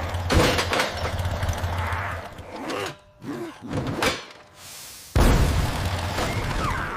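Cartoon sound effects of a digging machine: a rumbling mechanical din and clatter, a couple of seconds of quieter knocks, then a sudden loud crash about five seconds in, with breaking and shattering and a heavy low rumble after it.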